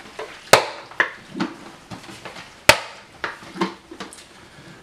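A plastic film developing tank being turned over by hand during agitation of the developer. It gives soft clunks and thuds as it is handled, and two sharp knocks, about half a second in and near three seconds in.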